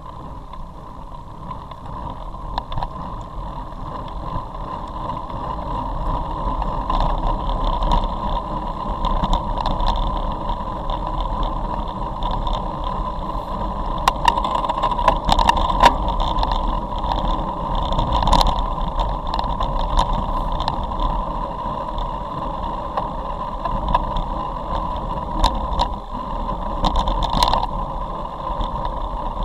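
Wind rushing over the microphone of a camera riding along with a group of road bicycles, with the hiss and rumble of tyres on a wet road, growing louder over the first few seconds. Occasional short clicks and knocks cut through the rush.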